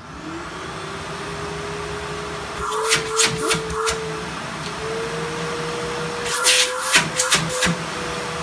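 Filter Queen Majestic M360 canister vacuum switched on, its motor winding up to a steady whine. Two clusters of sharp clicks from the top switch come about three seconds in and again around seven seconds. The pitch steps up slightly as the machine is moved between its two speeds. Not too loud.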